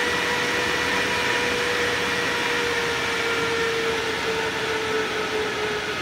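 AC Infinity Cloudline S8 8-inch inline duct fan running at full speed: a steady rush of air with a motor hum. The hum drops slightly in pitch near the end.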